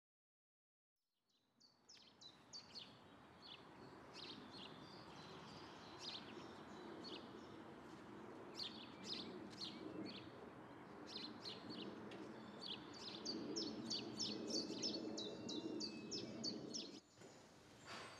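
Small birds chirping and singing in short, repeated notes over a steady outdoor background hush. The sound begins about a second in and drops away near the end.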